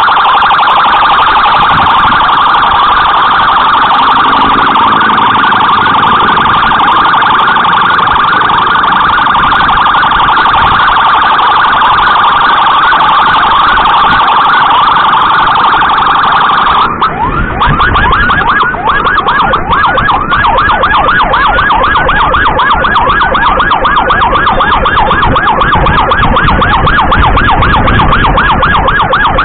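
Electronic emergency siren on an escort motorcycle, sounding continuously with a fast warble, then switching about halfway through to a faster, choppier pattern of quick rising chirps.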